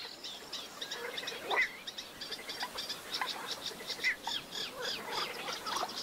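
Wetland birdsong: a dense, rapid run of high chirps and twittering, with lower call notes scattered through it.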